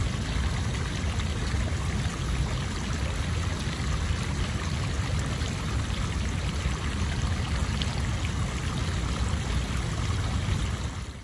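Water gushing steadily from the end of a pump discharge hose and splashing onto a concrete sidewalk: floodwater being pumped out of a building. It fades out at the very end.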